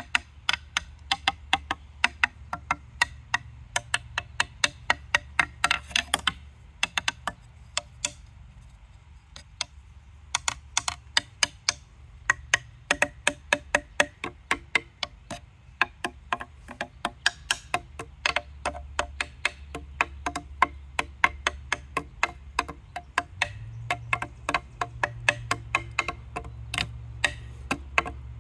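Homemade pine-branch xylophone struck with a wooden stick: quick runs of short, dry wooden knocks, several a second, with a short pause about eight seconds in.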